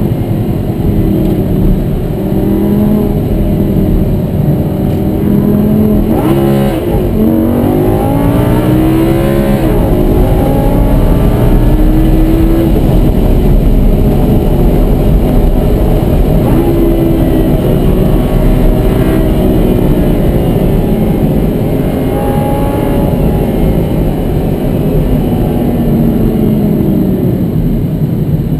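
Lamborghini Gallardo's V10 engine driven hard, heard from inside the cabin, its pitch rising and falling repeatedly through acceleration, gear changes and lifts off the throttle, with a sharp pitch change about six to seven seconds in.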